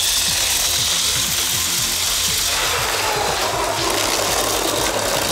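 Motorised Lego train with two electric motors whirring and its plastic gears rattling steadily as it climbs a steep ramp.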